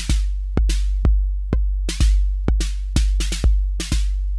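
Roland TR-808 drum machine playing a beat: a deep, long-decaying bass drum under sharp, hissy snare and hi-hat hits, about two a second.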